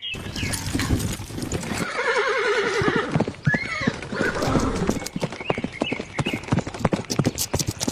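Horse whinnying, a quavering call about two to three seconds in, over steady clip-clop of hooves, many sharp knocks throughout.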